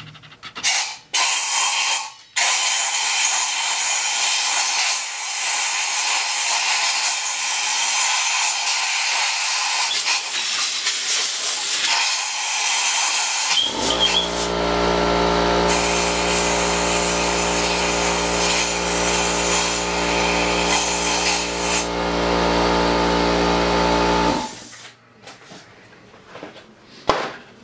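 Compressed air hissing from an air blow gun aimed into an ATV engine's cylinder head, blowing mouse-nest debris and pooled gasoline out from around the valves. It begins with a few short blasts, then a long steady blast; about halfway through, a steady droning machine hum joins and stops a few seconds before the end.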